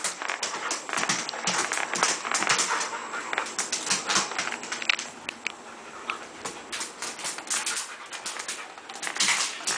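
A dog's claws clicking and scrabbling fast on a tile floor as it spins and lunges. The scratching thins out a little past the middle, then picks up again near the end.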